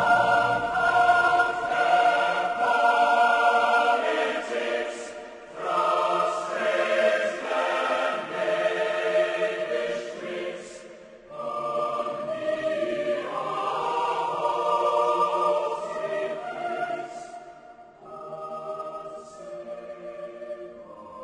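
Choral music with long held notes, in phrases that fade and start again about every five to six seconds.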